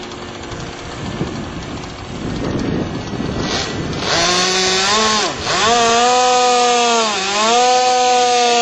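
Engine of a radio-controlled model biplane running in flight. It is quieter at first, then from about four seconds in it comes on loud and pitched, its note dipping and rising again several times.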